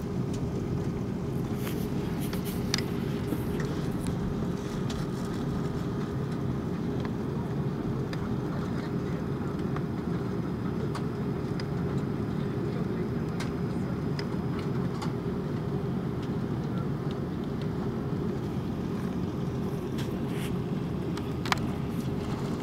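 Airbus A330-300 cabin noise while taxiing: the engines at taxi power give a steady low rumble with a steady hum running through it. A few sharp clicks stand out, one about three seconds in and one near the end.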